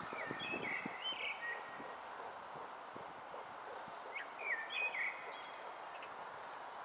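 A songbird singing two short warbled phrases, the second about four seconds after the first, over steady outdoor background hiss.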